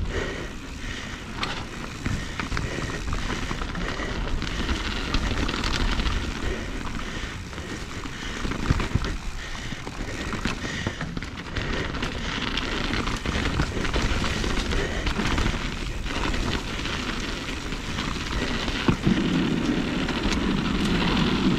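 Mountain bike being ridden over rocky ground: a continuous rush of tyre noise with frequent small knocks and clatters as the bike hits the rocks.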